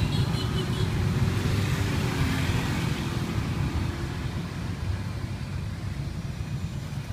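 Low, steady rumble of street traffic, easing off slightly toward the end.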